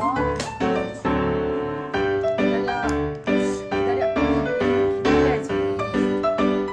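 Background music: a keyboard tune of quick, evenly paced notes over a bass line.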